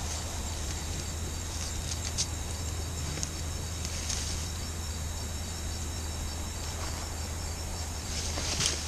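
Night insects chirring steadily in a high, pulsing chorus over a steady low hum, with a few brief rustles as the downed hog is handled.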